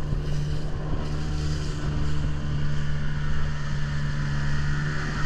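Outboard motor of an inflatable tender running steadily at speed, heard from on board the boat as it crosses choppy water.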